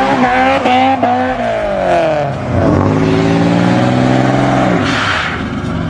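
Car engine revving hard: held high and wavering for about a second, the pitch falls away, then climbs again and holds high before dropping off about five seconds in, followed by a brief rush of noise.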